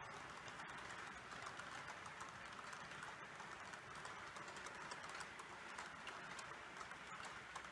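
H0-scale model freight train of open hopper wagons rolling along the track: a faint, steady hiss of small metal wheels on the rails with rapid, irregular light clicking as the wheels pass over the track.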